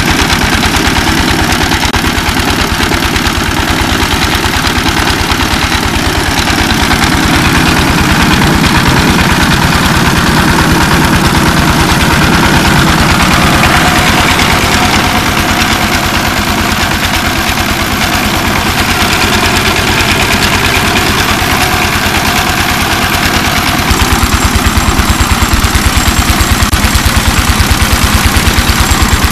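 Single-cylinder stationary diesel engine running steadily with a fast, even chugging beat, driving a belt-driven rice huller whose grinding of paddy adds a steady hiss over it. The engine beat grows louder a few seconds before the end.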